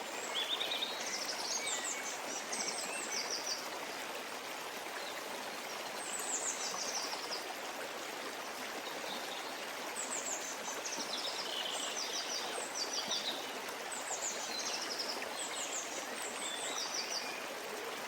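A brook running with a steady rushing babble. A songbird sings over it, repeating short high trills of rapid, evenly spaced notes every few seconds.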